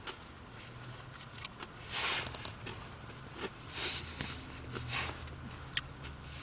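Crunching and chewing a kettle-cooked potato chip: a few loud crisp crunches about two, four and five seconds in, with small crackles between.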